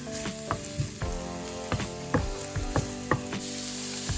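Diced red onion and spring onion sizzling in hot olive oil in a nonstick frying pan, with short, irregular taps and scrapes of a wooden spatula against the pan a few times a second.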